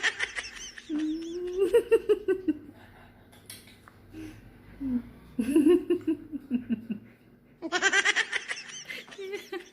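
Dog vocalizing in long, wavering, pitched calls: a high howl at the start and again near the end, with lower, gliding whines in between.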